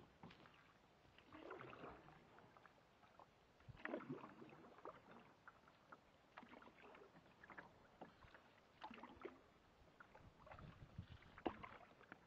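Faint canoe paddle strokes in calm water: a soft splash and swirl about every two to three seconds.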